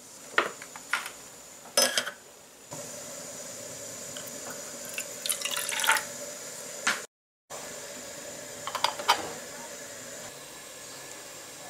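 Clicks as a long lighter lights a miniature gas burner, which then hisses steadily. Water is poured into a small stainless steel pot about halfway through, and a few metal clinks follow as the lid is set on.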